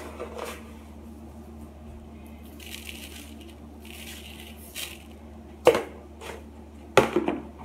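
Sugar poured from a cup into a container: a dry granular hiss in two spells, followed by two sharp knocks, the loudest sounds.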